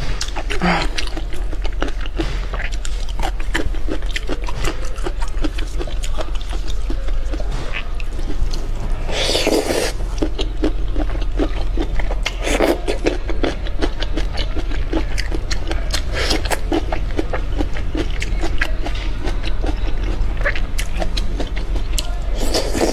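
Close-miked wet eating sounds: lips sucking and smacking and teeth chewing soft raw shrimp in chili marinade, with a run of small wet clicks and a few louder slurps. A steady low hum sits underneath.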